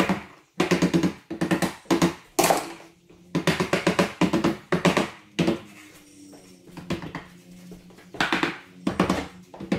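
Corded oscillating multi-tool cutting wood with a buzz that starts and stops in many short bursts, under a second each.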